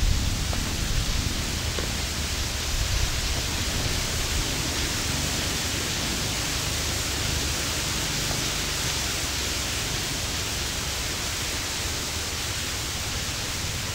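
Steady hiss with an uneven low rumble underneath; no distinct event stands out.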